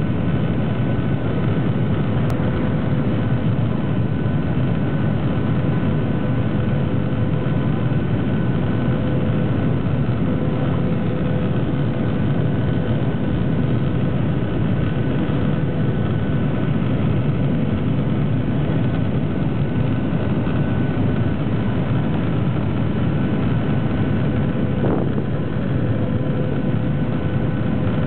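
Cabin noise of a Boeing 737-800 on approach, heard from inside the cabin: a steady rush of airflow and the CFM56-7B engines running, with a few steady humming tones over it.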